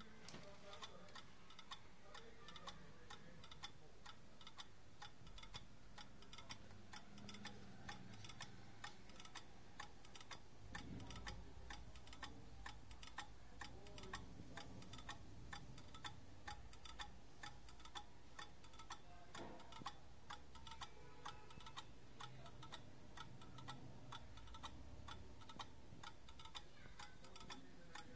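Escapement of a 50-year-old pendulum clock movement ticking steadily, the anchor pallets catching the brass escape wheel at about two to three ticks a second.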